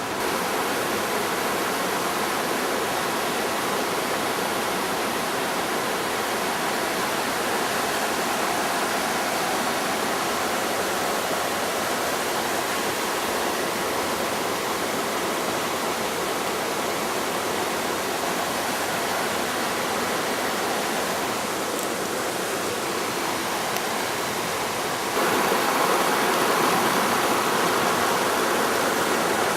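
Steady rushing of running water, a mountain stream or falls, as an even hiss and roar; it grows a little louder and brighter about 25 seconds in.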